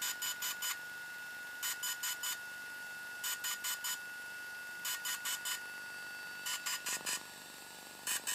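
DJI Phantom 3 quadcopter beeping in groups of four quick beeps, each group repeated about every second and a half, over a faint steady high whine. The four-beep pattern signals that a firmware upgrade is in progress.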